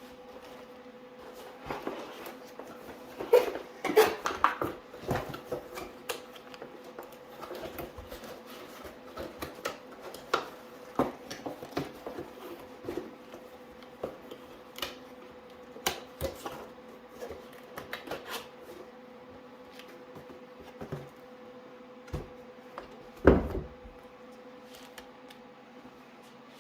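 Hands handling a keyboard and its plastic parts and packaging: scattered clicks, knocks and rustles, busiest a few seconds in, with one louder knock near the end, over a faint steady hum.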